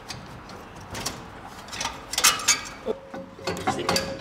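Metal-on-metal clinks and knocks of a turbocharger and its exhaust pipework being handled and offered up in an engine bay, as the V-band flanges are tried for fit. A faint steady tone comes in about three seconds in.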